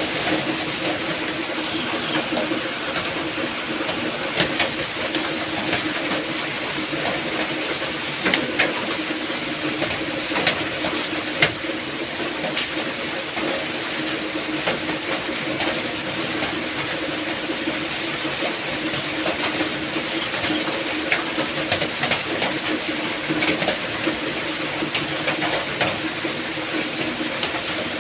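Steady rain falling, a constant hiss with many separate drops ticking sharply over it.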